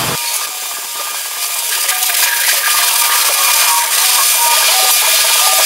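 Electric arc welding on thick steel plate: a steady crackling hiss from the arc as a weld bead is run, one pass of a multi-pass fillet weld joining plate to flange. The arc starts right at the beginning and builds a little over the first couple of seconds.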